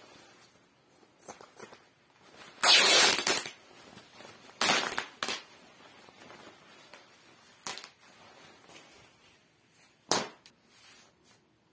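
A jacket's fabric being ripped by hand: a loud tear lasting nearly a second a few seconds in, another about two seconds later, then two short sharp rips, with the rustle of handled cloth between.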